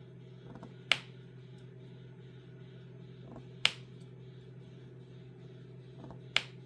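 Diamond painting drill pen clicking sharply three times, about every two and a half seconds, as resin drills are picked up and pressed onto the canvas. A steady low hum runs underneath.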